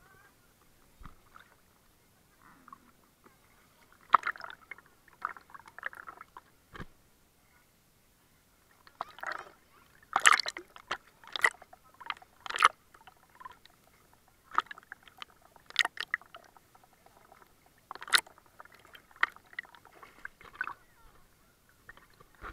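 Sea water sloshing and splashing around a camera held at the water's surface, in irregular short bursts with near-quiet gaps between them; the sharpest splashes come about ten to thirteen seconds in and again around sixteen and eighteen seconds.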